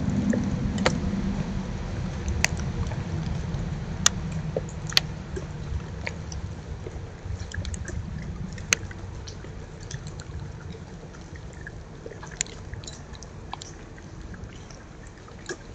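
Raccoons foraging and chewing birdseed right at the microphone. A low close-up rustle slowly fades, and now and then comes a sharp crunch of seed being cracked.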